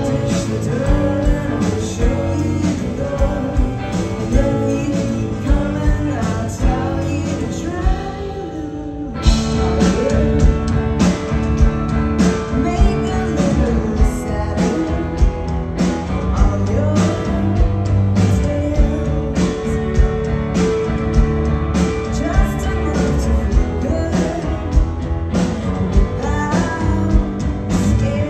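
Live indie rock band playing: electric guitar, bass, violin and drums, with a woman singing in places. About eight seconds in the drums drop out for a moment, then the full band comes back in louder.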